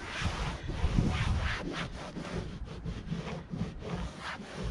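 Damp cloth rag rubbing back and forth over a travel trailer's roof, a run of uneven scrubbing strokes as soap residue is wiped off.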